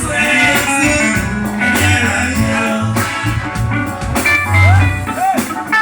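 Live band music with electric guitar lines over bass and drums.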